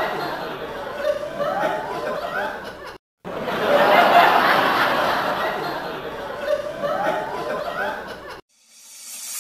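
Laughter: a clip of about five seconds played twice over. It breaks off for a moment about three seconds in, repeats the same way, then stops shortly before the end.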